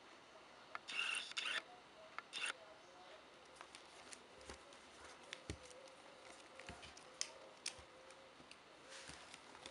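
Faint handling noise: two short rustles about a second and two seconds in, then scattered light clicks and taps.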